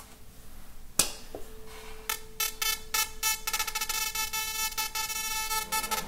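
A 440 Hz tuning fork is struck with a sharp click about a second in and rings a steady tone. From about two seconds in, a paper strip in weak contact with the vibrating fork buzzes and rattles against it in rapid, irregular ticks, the paper–fork contact that gives rise to the undertone.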